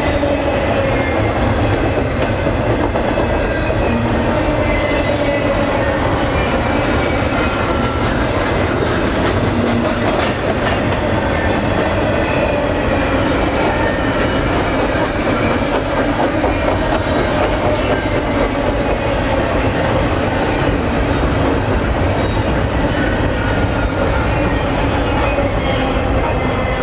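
Double-stack intermodal freight train's container well cars rolling past, a steady loud rumble of steel wheels on rail with faint steady tones riding above it.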